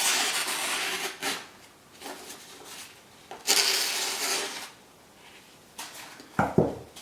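A Mora knife's blade drawn twice across a material as a sharpness test, two scraping strokes about a second long, the second about three seconds after the first; the owner finds this blade not very sharp.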